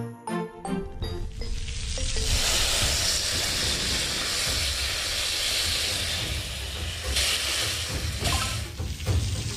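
Meat skewers sizzling and hissing loudly on a hot iron griddle, surging briefly as the fat flares. A chiming melody stops about a second in.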